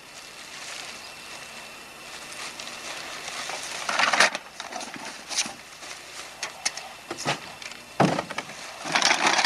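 Plastic trash bags rustling and crackling as they are rummaged through and items are pulled out, with louder bursts of crinkling about four seconds in, about eight seconds in and near the end.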